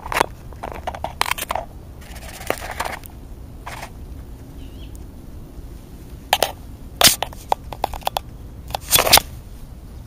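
Black vulture pecking and crunching scraps of food right at the microphone: irregular sharp clicks and crunches, loudest in short clusters about seven and nine seconds in, over a low steady rumble.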